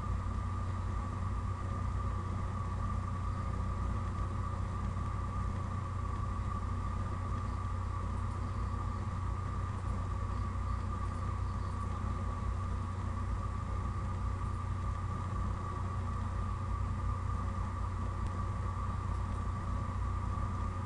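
Steady low hum with a constant thin whine above it, unchanging throughout.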